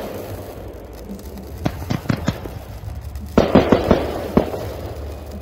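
Fireworks going off: a few separate sharp bangs about two seconds in, then a quick cluster of bangs with a lingering rumble a little past halfway.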